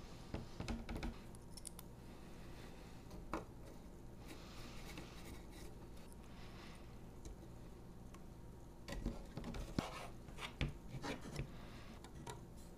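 Faint handling of a carbon-fiber drone frame and small hand tools: scattered light clicks and taps, soft scraping in the middle, and a run of clicks and small knocks near the end as a hex screwdriver works a screw.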